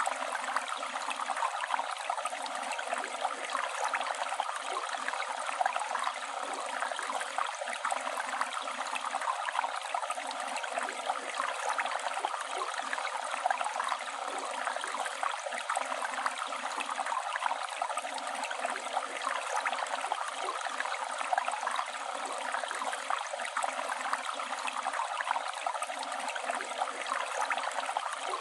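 Flowing river water rushing and splashing steadily, a continuous hiss of moving water with fine gurgling detail.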